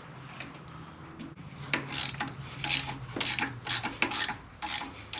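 Hand ratchet wrench turning a long bolt that draws a new pulley onto its shaft. Its raspy strokes repeat about every two-thirds of a second, starting a second and a half in.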